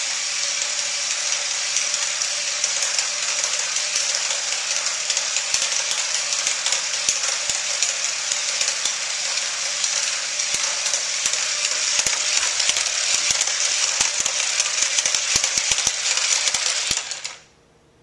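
Small electric motor of a remote-control toy whirring steadily, with rapid clicking and rattling that thickens in the second half, cutting off suddenly near the end.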